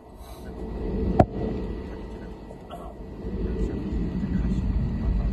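Jet airliner rolling on the ground, heard inside the cabin: a steady low rumble that grows louder about three seconds in. A single sharp knock about a second in.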